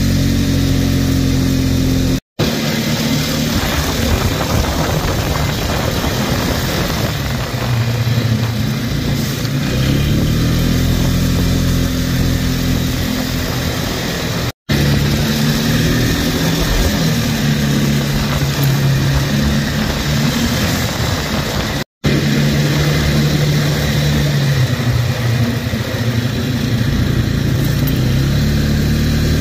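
ATV engine running under way, its pitch rising and falling as the throttle and speed change, over a steady rush of wind on the microphone. The sound cuts out briefly three times.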